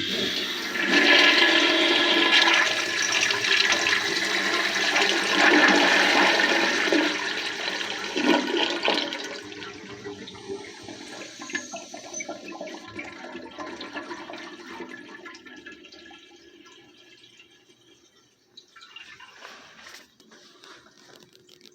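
Older Eljer toilet flushing: a loud rush of water for about nine seconds, then gradually fading away, with a brief fainter swell of water noise near the end.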